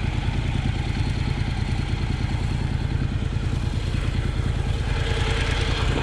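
Honda NC750X's parallel-twin engine running at a steady, even beat, with a brighter hiss building near the end.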